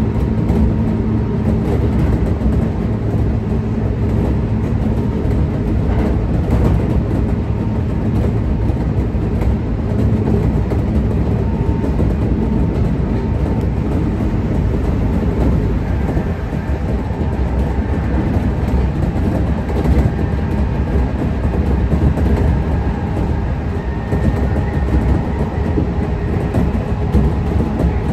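Kintetsu 1620 series electric train running at speed: a steady rumble of wheels on rail and running gear, with a few clicks over rail joints. A faint high tone joins the rumble about halfway through.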